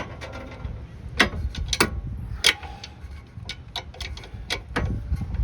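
Ratchet or torque wrench tightening a sway bar link nut toward 55 foot-pounds, its mechanism giving a series of sharp, unevenly spaced clicks, about two a second.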